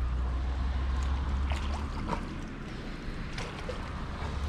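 Wind buffeting the microphone, with water sloshing and a few short splashes from a hooked common carp being played at the bank's edge beside the landing net.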